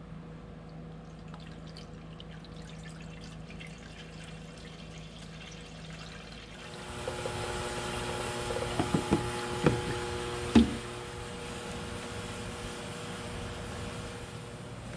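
Steady low hum, then about halfway through water starts running into the HMMWV's cooling system as it is filled to check for leaks, with a few knocks along the way.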